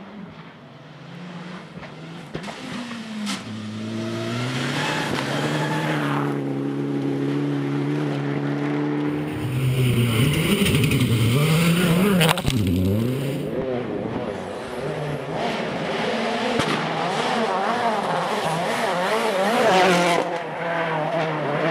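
Rally car engine at full throttle on a special stage. The revs climb and hold for a few seconds, then swing up and down and grow loudest as the car passes close, about ten seconds in, with one sharp crack. Hard revving with a wavering note follows.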